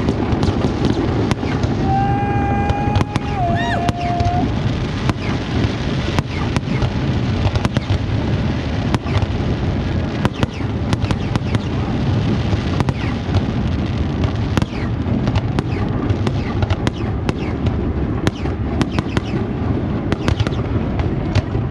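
Aerial fireworks show going off in a dense, continuous barrage of bangs and crackles over a steady low rumble. About two seconds in, a short steady whistle-like tone steps down in pitch.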